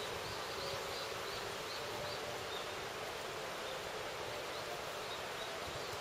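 Waterfall running high after the previous day's rain, a steady even rush of water. Faint high chirps repeat over it about twice a second, near the start and again later.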